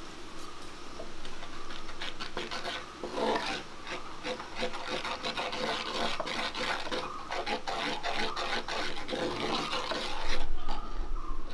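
Gram-flour dough being mixed with food colour powder in a bowl: a continuous squelching, scraping rub with many small clicks. A heavier, deeper bump comes near the end.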